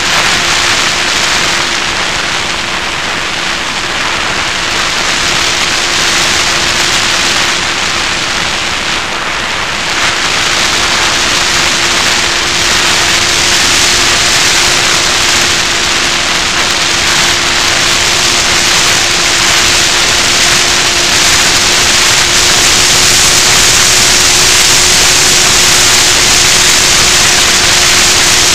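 Wind rushing over the onboard camera's microphone of an FPV Raptor model plane in flight, with a steady motor-and-propeller hum underneath. The rush gets a little louder from about ten seconds in.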